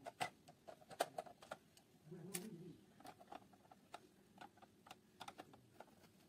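A screwdriver working small screws in a plastic coin-bank case, giving faint, irregular clicks and ticks of metal on screw and plastic. A short low sound comes about two seconds in.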